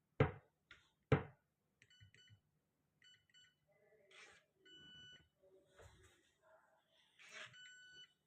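Tronic Slim digital door lock's keypad beeping as a new code is entered: short electronic beeps in small groups every second or two, after two sharp taps in the first second or so.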